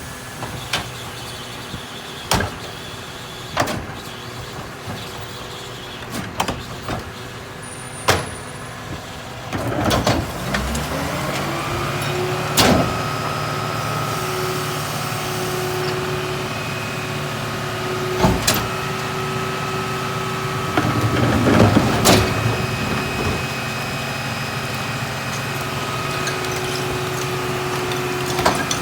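New Way rear-loader garbage truck packing a load: scattered knocks and clatter, then about ten seconds in the hydraulic packer starts, its whine rising in pitch and then holding steady while the blade cycles through heavy trash. Several loud knocks and cracks sound over it.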